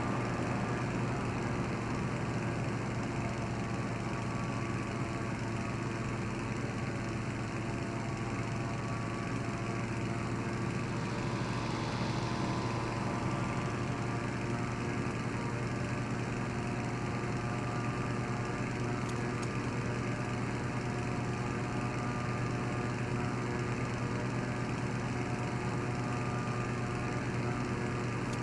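A motor running at a steady pace, giving an even low drone that does not change.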